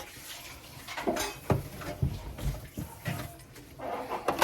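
Drink bottles and cans being handled and set down in a refrigerator: a series of separate light knocks and clunks.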